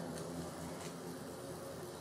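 Diesel locomotive engine running with a steady low drone from a stock sound recording, with a couple of faint ticks.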